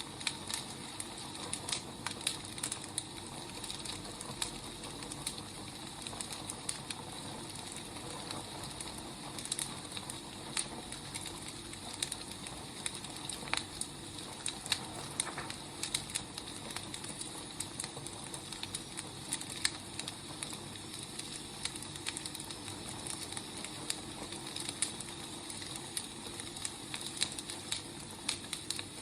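Wood fire crackling: a steady hiss with irregular sharp pops and snaps from burning firewood.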